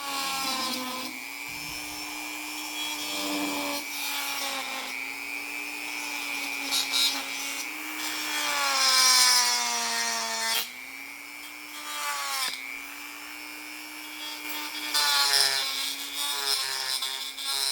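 Dremel rotary tool running at high speed, grinding out the cracks in a tractor's plastic steering wheel. A steady whine wavers and sags in pitch as the bit bites, over a scratchy rasping that swells and fades.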